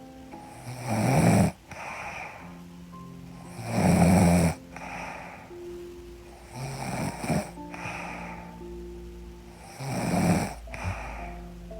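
A woman snoring in her sleep: four loud snores about three seconds apart, over soft background music.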